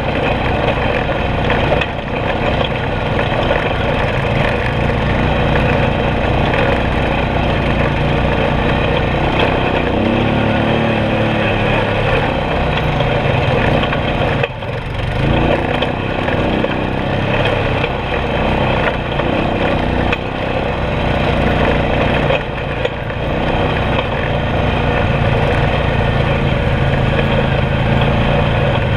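ATV engine running steadily over the trail, its pitch rising and falling with throttle changes twice near the middle.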